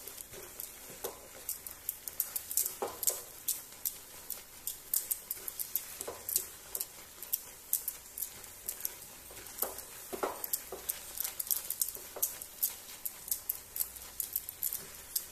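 Silicone spatula stirring and scraping thick grated apple in a non-stick pan, with irregular short scrapes several times a second. The apple is being fried in ghee until its juice cooks off.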